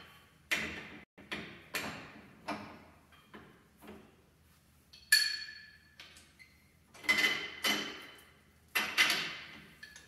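Hand tools knocking and clanking against steel suspension parts: about a dozen separate metal strikes, several ringing briefly, the sharpest one about five seconds in.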